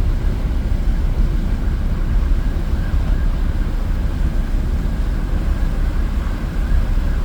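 Loud, steady low rumble on board a Mersey Ferry under way, the ship's engine noise mixed with wind buffeting the microphone.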